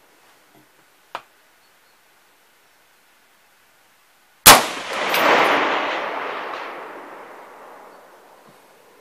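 A single shot from an H&K G3 A4 rifle in .308 Winchester, with a short metallic ring just after it and a long rolling echo that dies away over about four seconds. A faint click comes about a second in, well before the shot.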